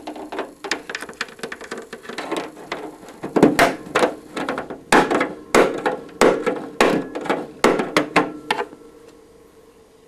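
African grey parrot knocking its beak against wood, a fast, irregular run of sharp knocks that grows louder about three seconds in and stops shortly before the end.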